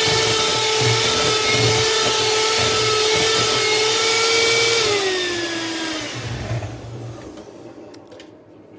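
Electric hand mixer running steadily with a constant whine as its beaters whip buttercream in a plastic bowl. About five seconds in it is switched off, and the whine falls in pitch and fades as the motor winds down.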